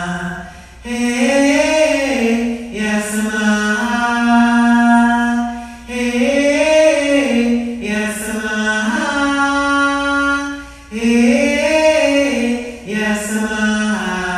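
A single voice singing an unaccompanied, chant-like melody in three long held phrases, each opening with a rise and fall in pitch, with short breaths between them.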